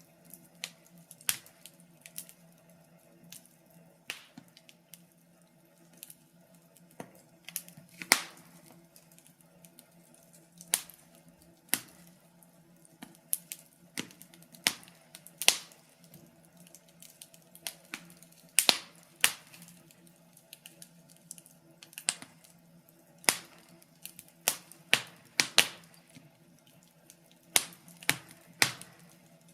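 Wood fire crackling in a fireplace: irregular sharp pops and snaps, sometimes several close together, over a faint steady low hum.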